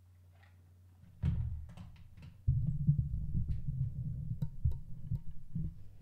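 Microphone handling noise: low rumbling and knocking as a microphone on a boom arm is moved into position, with a few light clicks. It starts about a second in and gets louder and steadier from about two and a half seconds.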